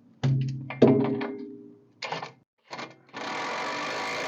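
Metal parts and tools at work on a car's rear shock mount: two sharp metallic strikes that ring on and fade over about a second, a few short clicks, then a steady noisy burst lasting about two seconds.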